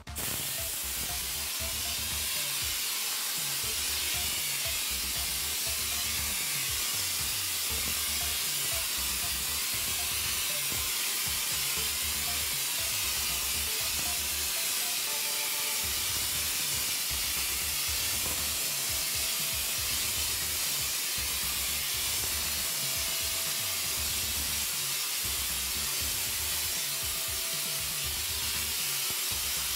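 Air-fed plaster hopper gun hissing steadily as it blasts plaster render onto a wall. Background music with a regular low beat runs under it.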